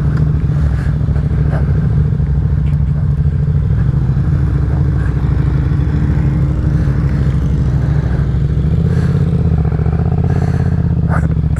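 Motorcycle engine idling steadily, with a few light clicks and clatter over it.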